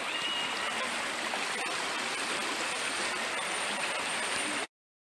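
Shallow, fast-flowing river rushing steadily over a rocky bed, cutting off suddenly near the end.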